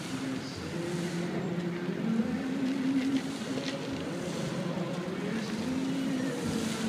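Fountain show music from the Bellagio's outdoor loudspeakers: a slow melody of long held notes that step up and down, heard at a distance under the hiss of water spray and wind.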